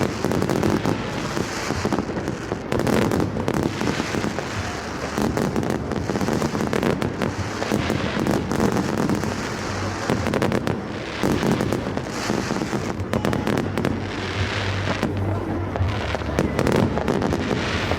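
Fireworks going off: a dense, continuous run of bangs, pops and crackles.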